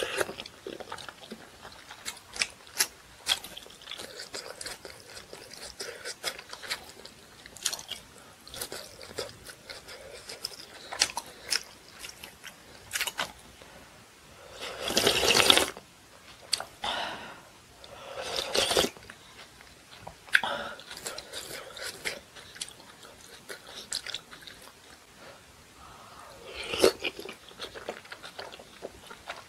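Close-miked eating sounds of someone chewing dumplings from rice-cake dumpling soup, with wet smacking clicks throughout. About halfway through there is a louder, longer slurp from the spoon, about a second long.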